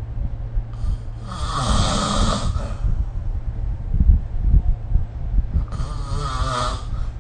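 A sleeping person snoring: two long, noisy snoring breaths about four seconds apart, with a low rumble in between.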